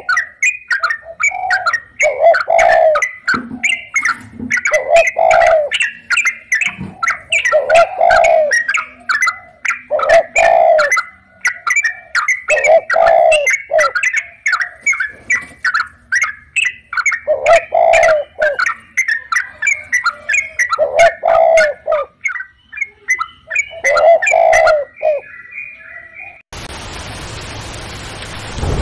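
Birds chirping rapidly, with a lower cooing call repeating every second or two. About two seconds before the end this cuts off abruptly to a steady hiss of rain.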